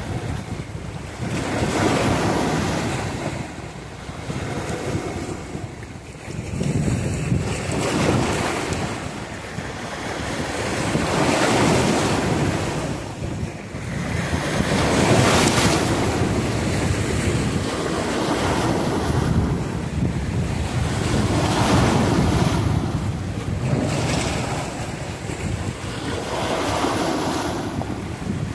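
Ocean waves breaking and washing in, swelling and ebbing every few seconds, with wind buffeting the microphone.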